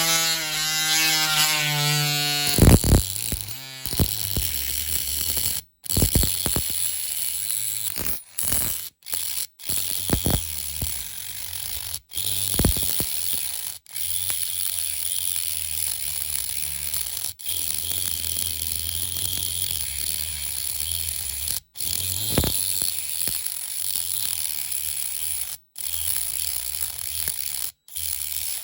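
A small electric rotary tool runs with a steady high-pitched whine, cutting through the diecast metal body of a model car to remove its front wings. The sound breaks off suddenly for a moment several times.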